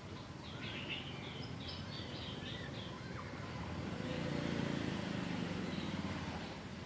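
A small bird chirps a quick run of short, high notes in the first few seconds, over a steady low hum that grows louder in the middle and then eases off.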